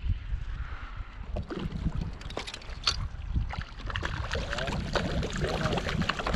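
A hooked trout thrashing and splashing at the water's surface beside a pontoon boat, the splashing getting busier in the second half, over a steady low wind rumble on the microphone.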